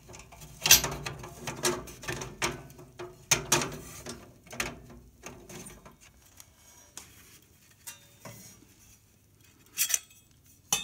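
Metal clinking and scraping as the catalytic combustor in its thin stainless steel retainer is worked against the baffle and secondary air tubes inside a wood stove insert's firebox: a run of quick clinks, then a lull with faint knocks, and a couple of sharper clacks near the end.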